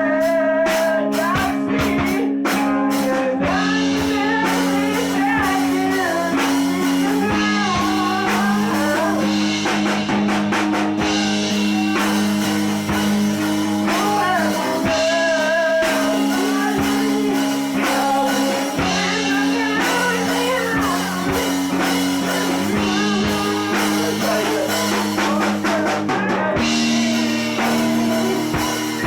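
Malaysian rock kapak song: electric guitar and drum kit over sustained chords that change every few seconds, with a wavering sung melody on top.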